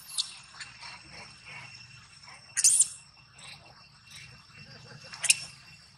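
Insects buzzing steadily in several high, even tones. Two short, loud, shrill calls break in, one about two and a half seconds in and a sharper one a little after five seconds.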